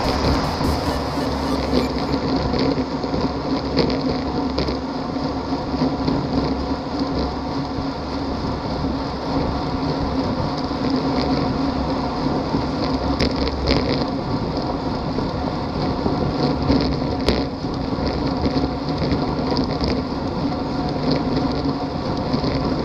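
Wind rushing over a bike-mounted camera's microphone, with tyre and road noise, from a road bike moving at about 43 km/h in a group.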